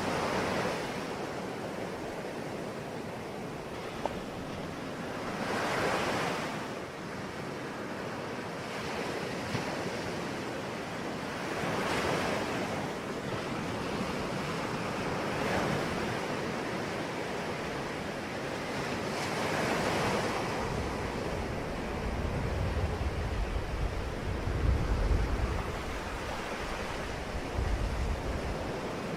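Sea waves breaking and washing ashore, the surf swelling and falling back about every four to six seconds. A low, gusty rumble comes in during the second half.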